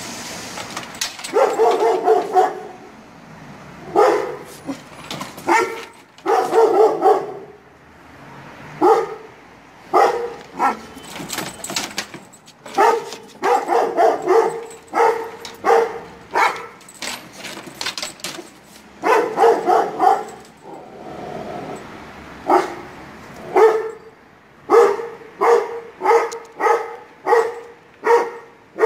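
Young Çapar Kangal dog barking repeatedly in clusters of deep barks, answering neighbouring dogs; near the end the barks come quickly and evenly, about one every half second.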